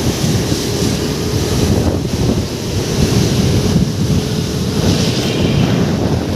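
Loud wind buffeting the microphone, over the steady rush of floodwater.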